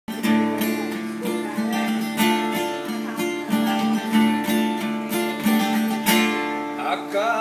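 Instrumental music led by strummed acoustic guitar, keeping a steady rhythm under a sustained melody, the introduction to the song.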